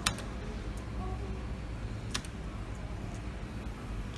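Two sharp clicks about two seconds apart from the start button of a Merkur slot machine, pressed once for each spin, over a steady low hum from the machine and the room.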